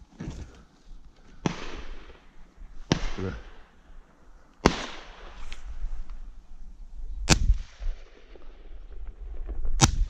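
Shotgun shots at a thrush shoot: five reports a second or two apart, each with a trailing echo. The first two are softer and more drawn out, as from farther off, and the last three are sharper and louder.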